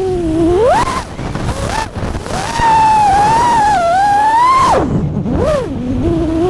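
FPV quadcopter's motors and propellers whining, the pitch swooping up and down with the throttle and plunging sharply twice about five seconds in before climbing again.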